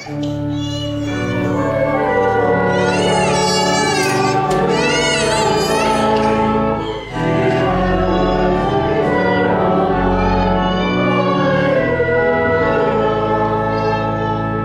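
Church organ playing sustained chords while voices sing along with vibrato, a liturgical sung response between the readings. There is a brief break about halfway through.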